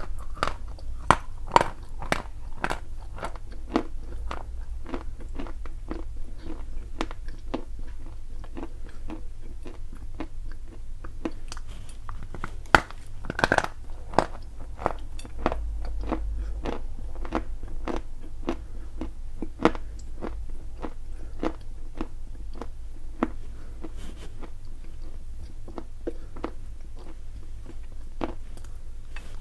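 Close-up crunching as a person bites and chews a lump of Chuya edible clay: a steady run of sharp, crisp crunches, with a few louder bites.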